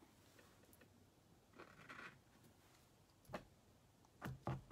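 Near silence, with a brief faint scratch about two seconds in and a few soft clicks near the end.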